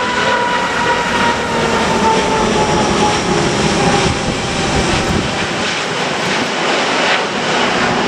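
Airbus A380's four Rolls-Royce Trent 900 engines at climb power just after takeoff: a loud, steady jet rumble with a whining tone that slowly falls in pitch.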